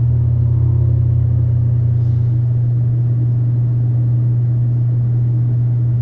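Steady low-pitched hum, unchanging in level and pitch.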